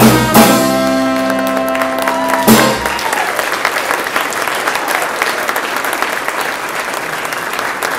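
A live band's closing chord: a held chord with accented drum hits at the start, again just after, and a last hit about two and a half seconds in that cuts it off. Audience applause rises under the chord and carries on alone for the rest.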